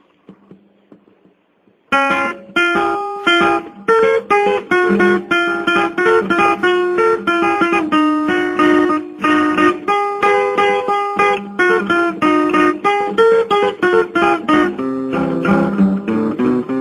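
Guitar music starting suddenly about two seconds in after near silence: a run of plucked notes mixed with strummed chords.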